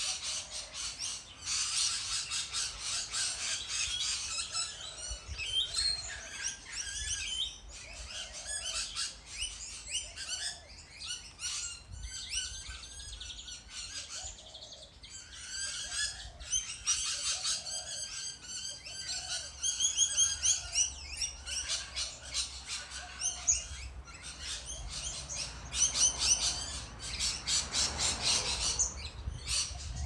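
A feeding flock of small green parrots chattering in an umbrella tree: dense, rapid high-pitched chirps and screeches that come in bursts with short lulls between them. A low rumble rises under the calls near the end.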